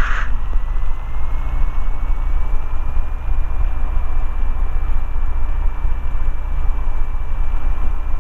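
The Robin DR400/180's four-cylinder Lycoming O-360 engine runs steadily on the ground while warming up before the run-up. A thin whine rises slightly over the first few seconds, then holds steady.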